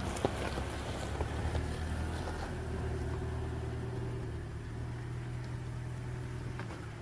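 Toyota RAV4 Hybrid running with a steady low hum, with a few light knocks in the first second or so.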